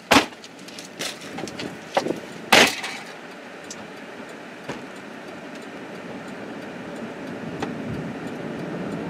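Several loud knocks and thumps in the first three seconds, the loudest right at the start and another about two and a half seconds in, then a steady rushing noise that slowly grows louder.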